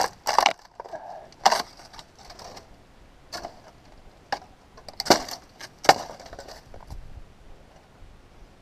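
Dry, dead plant stalks cracking and snapping as they are handled and broken, about seven sharp, irregular cracks, the loudest about five and six seconds in.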